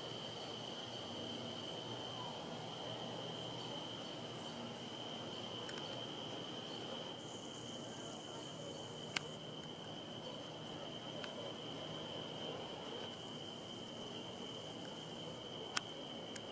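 Evening insect chorus of crickets: a steady high trill, with a fainter, higher chirping at about three pulses a second that stops about three-quarters of the way through. Two sharp clicks stand out above it.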